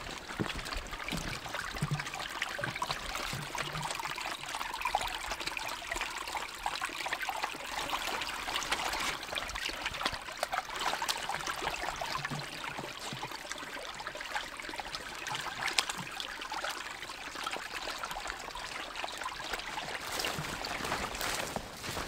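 Shallow forest stream running and trickling over stones in a steady babble, with occasional soft knocks of footsteps.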